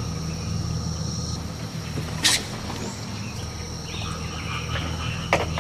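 Outdoor insects, crickets or similar, keeping up a steady high-pitched drone, over a low steady hum, with one short sharp noise a little over two seconds in.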